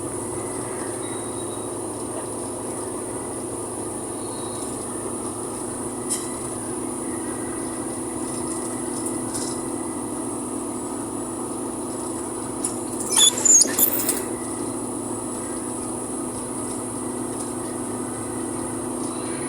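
Steady engine and road drone heard inside a moving vehicle's cab, with a constant pitched hum and a thin high whine. About two-thirds of the way through, a brief high-pitched squeal rises over it for about a second.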